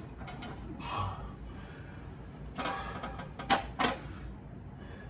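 Light metallic clicks, knocks and scrapes as an NV3550 transmission on a transmission jack is nudged into line with the bell housing, with two sharper knocks about three and a half seconds in.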